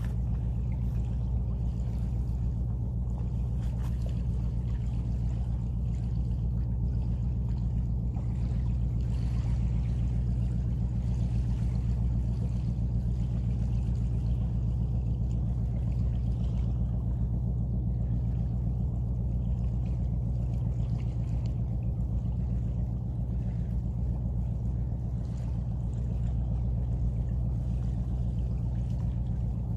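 A steady low drone of distant machinery, unchanging, with a faint hiss above it.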